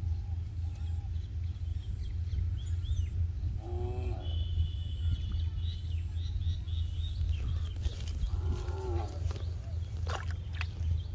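Two short animal calls, one about four seconds in and another about four seconds later, over a steady low rumble, with thin high chirps between them and a few sharp clicks near the end.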